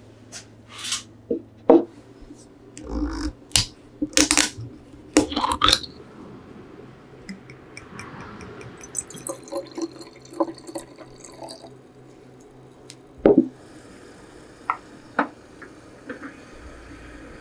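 Clicks and taps of a glass sake bottle being handled and uncapped, then sake poured from the bottle into a ceramic tokkuri flask, gurgling for a few seconds. A single loud knock follows, then a few light clinks as the flask is lowered into a pan of hot water.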